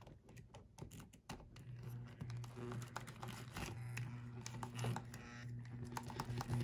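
Motor of an HO-scale Rivarossi 0-8-0 steam locomotive humming in stop-start runs, cutting out briefly a few times, with rapid clicking and rattling from its gears and wheels under a hand on the track. The locomotive has been binding and seizing intermittently.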